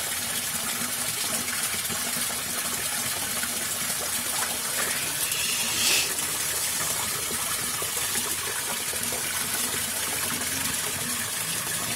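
Steady rushing of water pouring through a culvert into a canal. About six seconds in, a brief, sharper, higher sound rises above the water.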